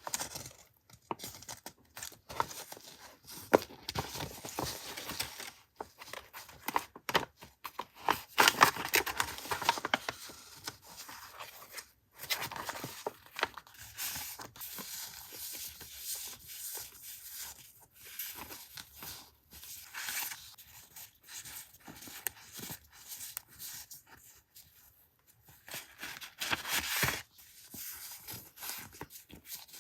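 Paper and packaging handled up close: irregular rustling, scraping and light clicks, with longer rustles about eight seconds in and again near the end.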